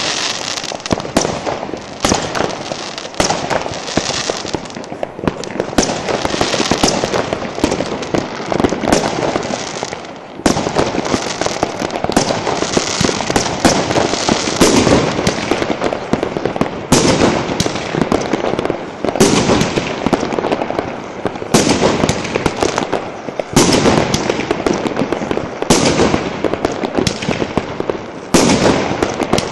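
Many fireworks going off together: a dense, continuous crackle of bursting stars, cut by sharp bangs of rockets and shells exploding every second or two, with a brief lull about ten seconds in.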